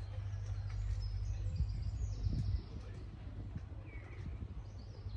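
Outdoor ambience: a steady low rumble with a few faint bird chirps over it.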